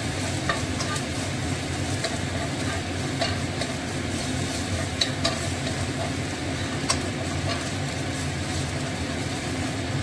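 Minced garlic sizzling in oil in a nonstick frying pan, stirred with a fork that clicks against the pan now and then, over a steady low hum.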